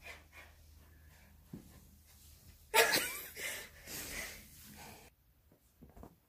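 A person's breathy laughter in a few short bursts, starting nearly halfway in.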